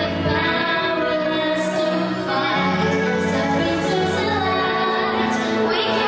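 A girl singing a song solo into a microphone over instrumental accompaniment, holding some notes for a second or more.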